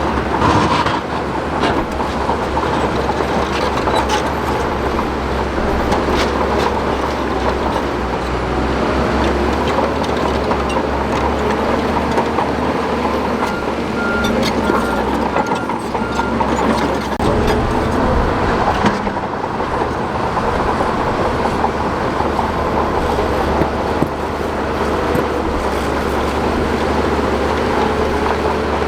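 SHANTUI DH17 crawler bulldozer working rock: its diesel engine runs steadily under the clank and clatter of the steel tracks. A reversing alarm beeps about five times about halfway through.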